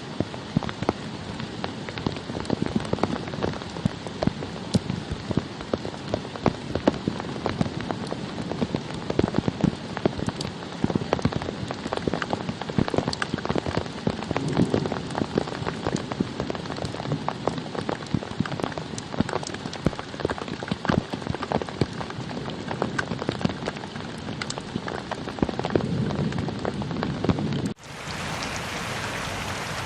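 Rain falling hard, with many individual drops pattering sharply on a surface. About 28 seconds in it cuts abruptly to a steadier, brighter hiss of rain.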